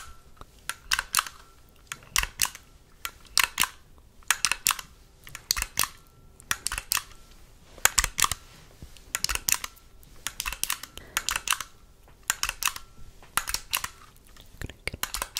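A small camera being clicked close to the microphone: clusters of quick, sharp clicks about once a second.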